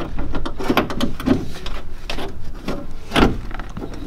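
Steel window regulator clanking and scraping against the inside of a car door shell as it is rotated by hand to line its studs up with the mounting holes, with irregular knocks and a louder clunk about three seconds in.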